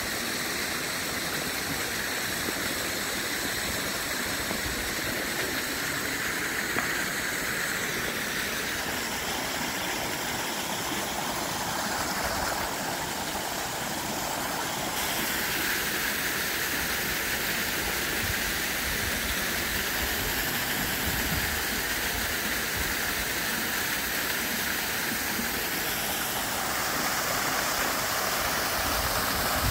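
Steady rush of muddy storm runoff gushing out of drain pipes in a stone retaining wall and pouring onto the ground below. Its tone shifts a few times.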